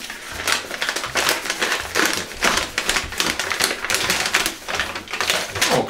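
Brown paper wrapping crinkling and rustling as it is unfolded by hand, a rapid, irregular crackle.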